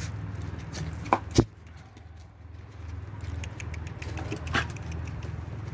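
Puppies moving about on a wooden deck: light pattering and ticking, with a couple of sharp knocks about a second in and another near the end, over a low steady rumble.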